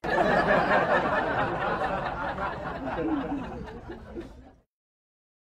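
A crowd laughing, dying away gradually and stopping about four and a half seconds in.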